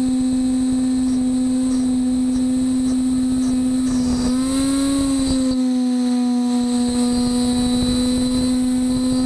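CNC router spindle running with a steady whine while milling a 1/2-inch aluminum plate, with rough cutting noise beneath it. About halfway through, the pitch briefly rises and then settles back.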